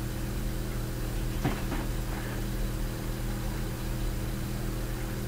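Steady low electrical hum with its overtones over a background hiss, with one faint short sound about a second and a half in.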